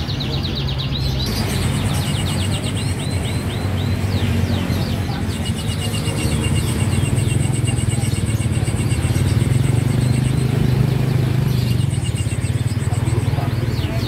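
Many caged songbirds chirping and trilling at once in fast repeated runs of short high notes, over a low steady rumble.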